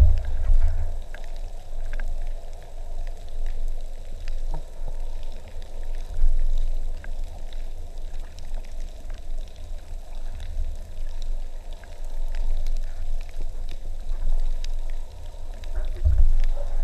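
Underwater sound picked up through a camera housing: a low, uneven rumble of water moving past it, swelling and fading, with faint crackling and ticking throughout.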